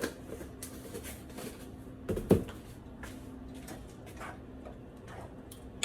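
Kitchen handling sounds at the stove: light taps and clicks, with one louder knock about two seconds in, over a faint steady hum.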